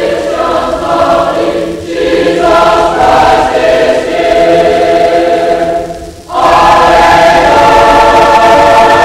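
High school choir singing sustained chords, with a brief break between phrases about six seconds in, after which a loud full chord is held.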